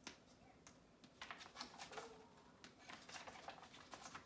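Faint rustling and a quick run of light clicks as the pages of a hardcover picture book are handled and turned.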